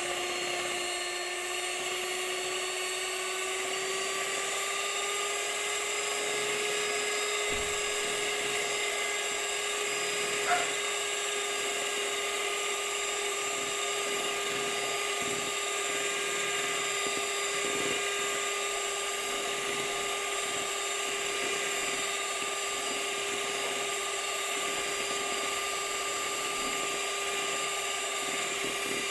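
Electric hand mixer running steadily, its beaters whipping egg whites with cream of tartar into meringue in a plastic bowl: a high motor whine whose pitch rises slightly in the first few seconds and then holds. A single brief knock about ten seconds in.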